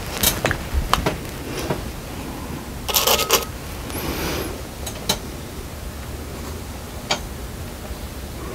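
Scattered light clicks and taps from handling a plate and a plastic slip-trailer bottle, with a short rattling knock about three seconds in.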